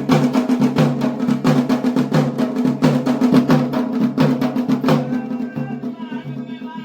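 Garhwali drums of a mandan, dhol and damau, beaten in a fast even rhythm of about three strokes a second. About five seconds in the drumming drops back and a wavering higher melody comes in over it.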